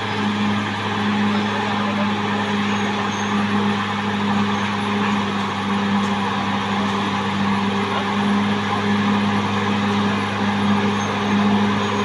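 Caterpillar D6R XL bulldozer's diesel engine running with a steady, even drone.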